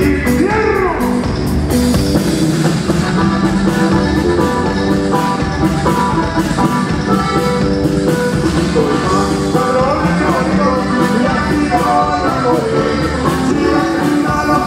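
Live Mexican dance band playing with a steady beat: electric bass, drums and keyboard.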